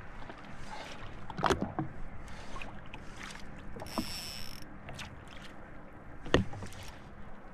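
Water lapping and slapping against the hull of a jet ski drifting at sea, under a low steady hum. Two sharp knocks sound, one about a second and a half in and one near the end, and there is a brief hiss around the middle.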